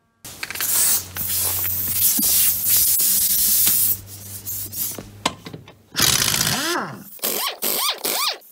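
Pneumatic impact wrench taking the wheel nuts off an ATV: a loud rush of air with a low steady hum for about four seconds, then several short trigger bursts near the end, each rising and falling in pitch as the wrench spins up and down.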